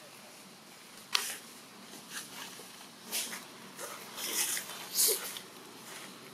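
Young macaque biting and chewing a piece of mango: a series of short, sharp, noisy smacks and crunches, irregularly spaced about a second apart.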